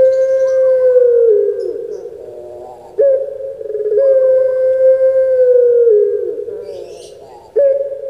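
Puter pelung, a long-cooing breed of Barbary dove, giving its drawn-out coo. Each coo starts abruptly, holds one long steady note and drops in pitch at the end. One coo ends about two seconds in, a second runs from about three seconds to six and a half, and a third begins near the end.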